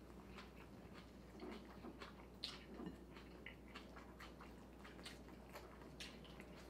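Faint chewing and mouth sounds of people eating sandwiches, with scattered soft clicks and small noises of food being handled.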